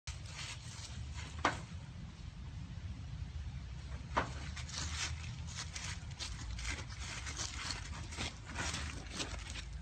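A corgi's paws scrabbling and digging in loose gravel: irregular crunching clicks, two sharper ones early on and denser ones in the second half, over a low steady rumble.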